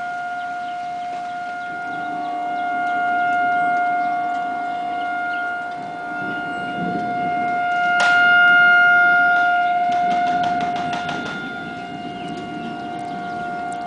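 Outdoor tornado warning sirens sounding a steady, unchanging pitch that swells and fades in loudness. There is one sharp click about eight seconds in.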